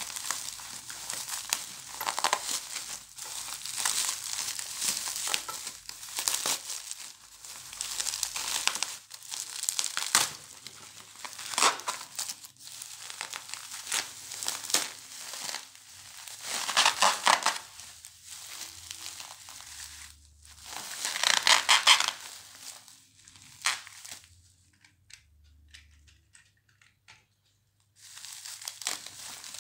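Plastic bubble wrap crinkling and rustling as it is unwrapped by hand, in irregular bursts. A near-silent pause of a few seconds comes near the end, then the rustling starts again.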